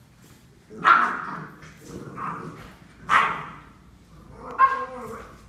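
Puppies barking: four short, sharp barks spaced about a second apart.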